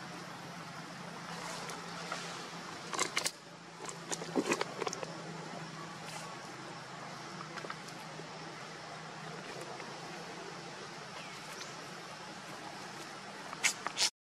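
Steady outdoor background noise with a faint low hum that fades out a few seconds before the end. Short clicks or rustles come around three and four seconds in and again near the end, followed by a brief drop to silence.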